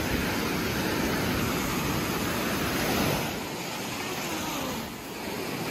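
Surf washing up on the beach, a steady rush of waves that eases a little about three seconds in.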